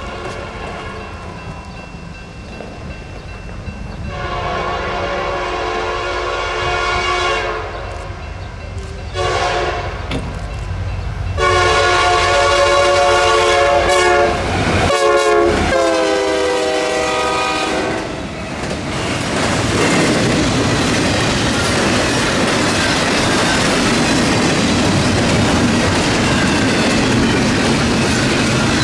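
Diesel locomotive air horn sounding several chord blasts as the train approaches. The last long blast drops in pitch as the locomotive goes past. From there on, the train's wheels rumble and clack steadily over the rails.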